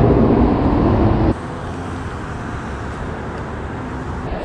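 Road traffic on the bridge overhead: a vehicle's engine and tyres loud for about the first second, then dropping suddenly to a steady, quieter traffic hum.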